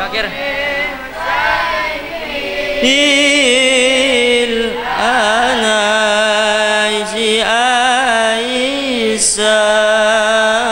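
Slow, melismatic Islamic devotional chant sung by a solo voice: long held notes with wavering ornaments, in phrases separated by short breaths.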